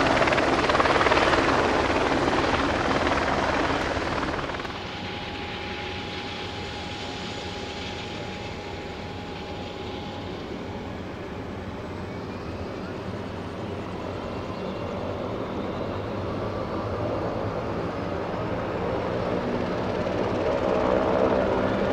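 Leonardo AW139 helicopter's twin turboshaft engines and rotors running during start-up. The sound is loud and rough for the first four seconds or so, then drops abruptly to a steadier running sound that slowly builds in loudness toward the end.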